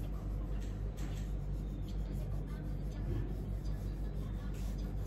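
Colored pencil scratching across paper in quick back-and-forth shading strokes, over a steady low electrical hum.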